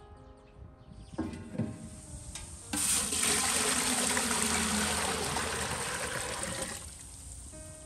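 Water poured in a steady splashing stream from an enamel basin into a large, empty aluminium stockpot. The pour starts abruptly about three seconds in and lasts about four seconds.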